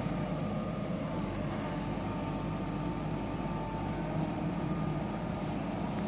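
JCB 3DX Eco backhoe loader's diesel engine running steadily under work, with a faint high whine above it.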